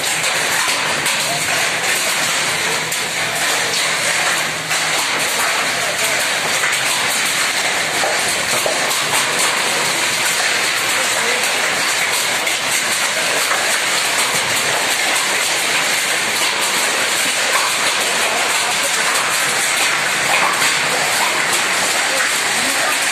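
Hailstorm: hail and rain pelting down on roofs and ground in a dense, steady rush of noise without a break.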